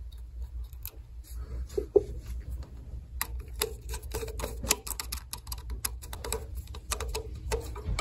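Small irregular clicks and scrapes of a screwdriver turning a terminal screw on an electrical pressure switch to clamp a wire, over a steady low hum.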